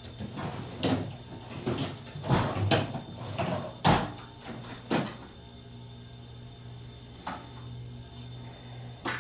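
A metal tool scraping and clicking against a brass faucet stem as old, crumbling packing is pried out: a run of irregular knocks and scrapes over the first five seconds, then two single ticks later on.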